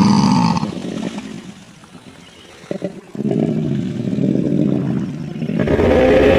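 Imagined Andrewsarchus vocalizations built as a creature sound effect: a rough, low growl that fades out, a short lull with a couple of clicks, then another low growl, and a louder pitched call beginning near the end.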